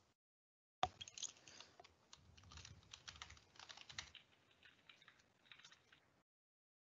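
Faint typing on a computer keyboard: a quick run of key clicks that starts about a second in and stops near the end.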